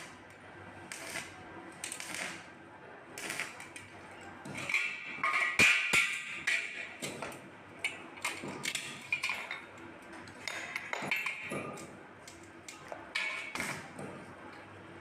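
Irregular metal clinks and knocks, with a louder ringing metallic clank about five to six seconds in.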